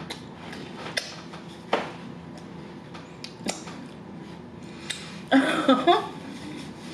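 Eating sounds: a few sharp taps and clicks of a fork and fingers on plastic takeout containers. About five seconds in comes a brief vocal sound from the eater, about a second long, its pitch wavering.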